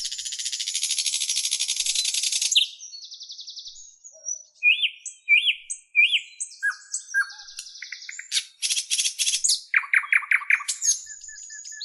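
Birdsong: a long, high buzzy trill for about the first two and a half seconds, then a string of varied chirps, three rising-and-falling whistled notes and quick runs of repeated notes.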